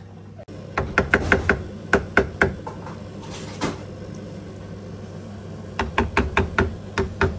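Wooden spoon knocking against the side of a metal pot while stirring fettuccine in a thick cream sauce, in quick runs of sharp knocks separated by short pauses. A steady low hum runs underneath.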